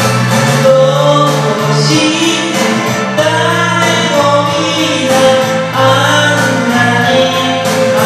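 Karaoke backing track of a pop ballad playing, with sustained singing over it.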